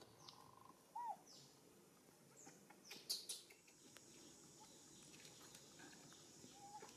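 Quiet outdoor ambience with scattered short bird chirps. A brief arched call comes about a second in, a short crackle around three seconds, and then a faint steady high-pitched whine.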